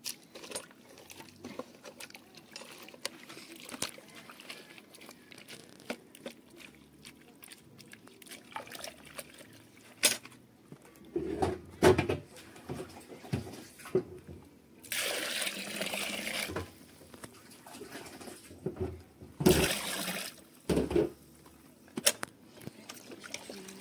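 A wooden paddle stirring and knocking against an aluminium pot of wet animal-feed mash made of sweet potato leaves and grain, with sloshing and scraping. Water splashes in twice, a longer pour about two-thirds of the way through and a shorter one soon after, and near the end the mash is swirled by hand.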